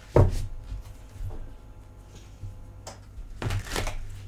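A tarot deck being shuffled and handled by hand: a sharp knock just after the start, then scattered soft slaps and clicks of cards, with a busier cluster a little after three seconds in.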